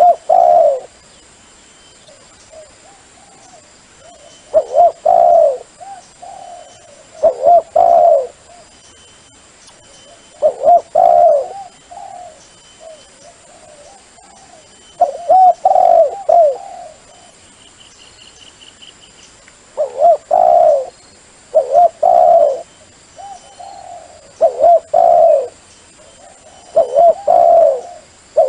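Dove cooing: short phrases of a few low, rolling coos, repeated every two to four seconds.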